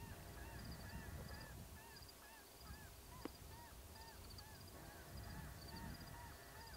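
A flock of geese honking faintly, many overlapping calls several times a second, over a low wind rumble. A single sharp click about three seconds in.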